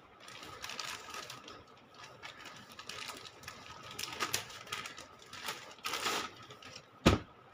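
Clear plastic packaging crinkling and rustling as it is handled, in irregular bursts, with one sharp knock about seven seconds in that is the loudest sound.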